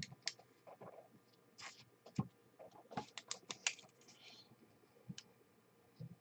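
Faint computer keyboard keystrokes, scattered and irregular, with a quicker run of several keys about three seconds in.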